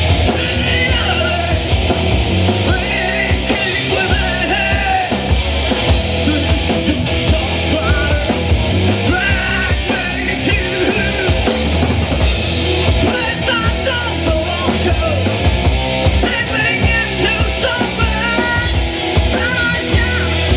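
Live rock band playing loud, heavy music with a driving drum beat and electric guitars.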